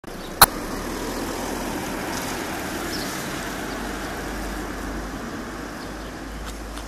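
A car drives past on a paved street: a steady rush of engine and tyre noise with a low rumble, easing toward the end. A single sharp click sounds about half a second in.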